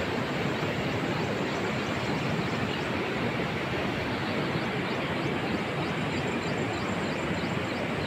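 Steady rushing rumble of a moving vehicle, with faint short high chirps repeating in the background.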